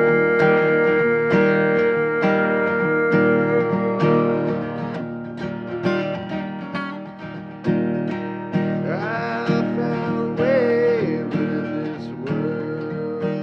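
Acoustic guitar played with a steady rhythm of plucked and strummed chords, with a voice briefly singing a few wavering notes about two-thirds of the way through.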